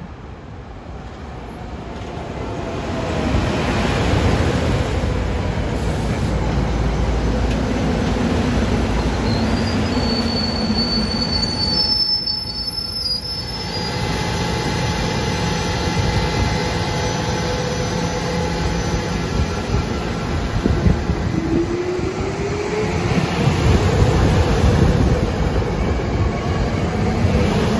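SEPTA Silverliner IV electric multiple-unit commuter train rumbling through the station. It grows loud over the first few seconds and stays loud, with high wheel squeal about ten seconds in and a rising whine a little after twenty seconds.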